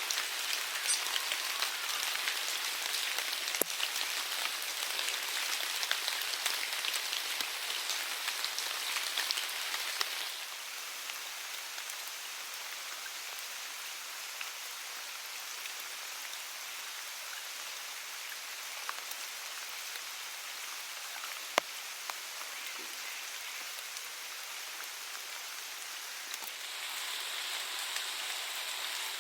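Steady rain falling, with a couple of sharp single drips or taps, the louder one about two-thirds of the way through. The rain gets a little softer about a third of the way in and picks up again near the end.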